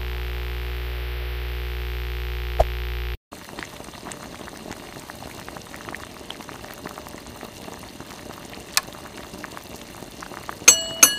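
A held synth tone from the logo sting rings on and cuts off about three seconds in. Then comes a soft crackling, bubbling liquid sound effect under the ink-swirl animation, with a few bright plucked musical notes near the end.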